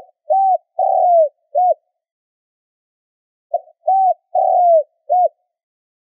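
Spotted dove cooing: two phrases about three and a half seconds apart, each of four notes, with the third note longer and falling in pitch.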